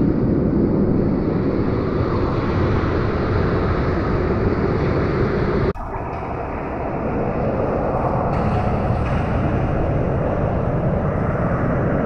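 Steady, muffled rushing rumble of water streaming past an underwater camera beneath a sailing catamaran under way, with a sudden short break about halfway through.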